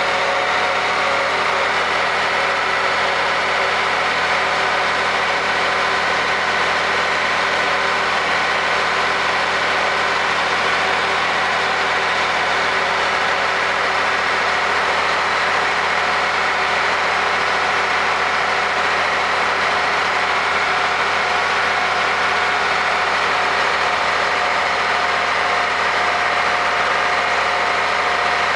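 Tractor engine running steadily at road speed, with its exhaust stack close by, its pitch holding even throughout.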